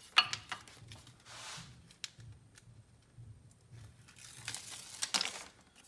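Aluminum foil tape being pulled off its roll and torn, heard as a few short rips and crinkles, the loudest about five seconds in, with a sharp click just at the start.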